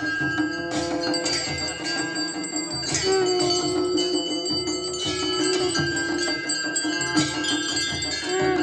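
Live traditional devotional music: long held melodic notes that shift pitch every few seconds, over steady drumbeats and ringing bells.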